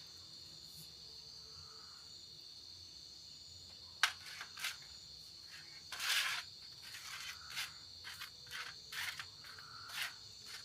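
Crickets chirping in a steady chorus. About four seconds in, a series of sharp cracks begins, with a brief hissing burst a couple of seconds later and more cracks after it.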